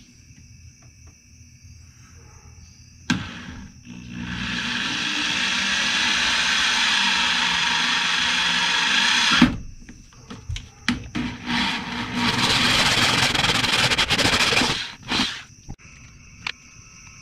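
Power drill running in two long runs, about five seconds and then about three seconds, with short bursts between them. A sharp knock comes shortly before the first run.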